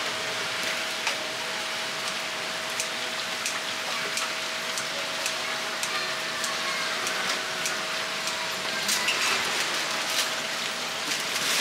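Steady hiss of oil sizzling in a deep fryer, with scattered sharp clicks of metal tongs and kitchen scissors cutting fried chicken.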